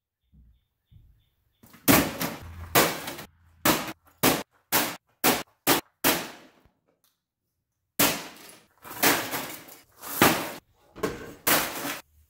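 A run of loud, irregular bangs and crashes, some sharp and short, some longer and rattling, with a break of about a second and a half partway through.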